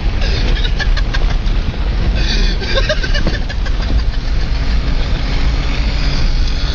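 A motor vehicle's engine running steadily, with scattered clattering knocks in the first two seconds.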